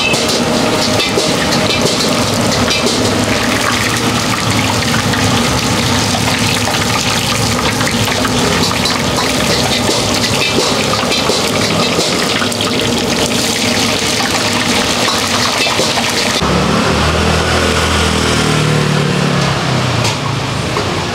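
Stinky tofu deep-frying in a pot of hot oil: a dense, steady sizzle and crackle as the pieces are stirred with a wire skimmer. About sixteen seconds in the sizzle gives way to a low rumble of street noise.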